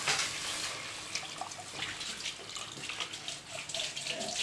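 Tamarind water poured in a stream into a clay pot of sautéed curry masala, splashing as the pot fills.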